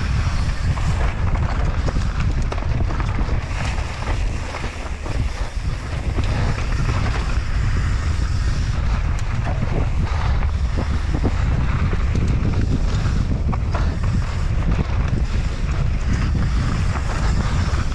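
Wind buffeting the microphone of a bike-mounted action camera on a fast mountain-bike descent, over the rumble of tyres on loose, dusty dirt, with scattered clicks and rattles from the bike.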